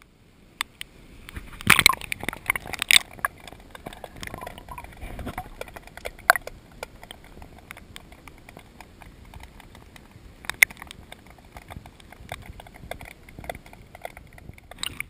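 Irregular clicks and knocks, a few louder ones about two, three and ten seconds in, over a steady hiss: handling and gear knocking about in a fishing boat.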